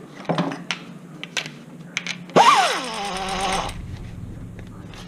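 Pneumatic wrench firing in one burst of about a second and a half: the air motor's whine shoots up and then drops and settles as it takes the load of a bolt, over a hiss of air. Before it, a few light clicks and knocks of the socket being fitted.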